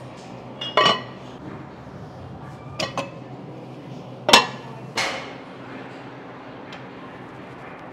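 Steel weight plates clanking against each other and the loading horns as they are loaded: about five sharp metallic clanks, some ringing briefly, the loudest about four seconds in.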